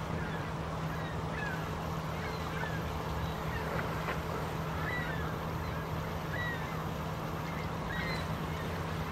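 Shallow river water flowing over rocks, with a steady low hum under it. Short, high bird calls sound about once a second.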